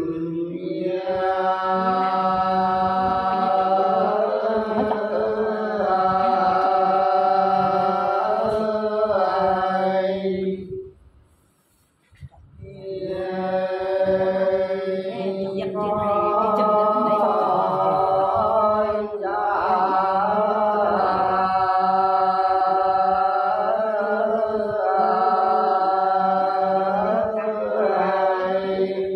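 A man singing Sán Dìu soọng cô folk song, the men's side of an antiphonal men-and-women exchange. It is chant-like, in long, drawn-out notes that waver slowly. The singing breaks off for a breath about eleven seconds in, then goes on.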